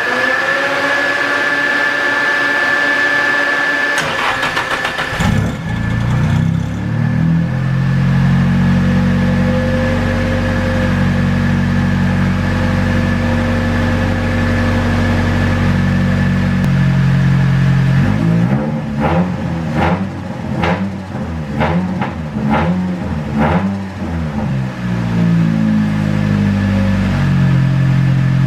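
Nissan SR20DET turbocharged four-cylinder starting: a high whine, brief cranking, then the engine catches about five seconds in. It settles into a steady idle and is revved in a series of short blips near the middle to end before dropping back to idle.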